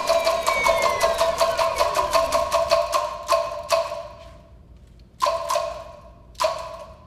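Finger-snap mokugyo (wooden-fish block struck by a finger-snap trigger) knocking in a rapid run of about six sharp wooden knocks a second, slowing and dying away about four seconds in, then two single knocks near the end. A falling tone sweeps down under the knocks in the first couple of seconds.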